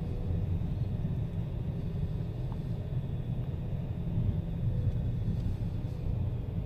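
Car driving slowly, a steady low rumble of engine and tyres heard from inside the cabin.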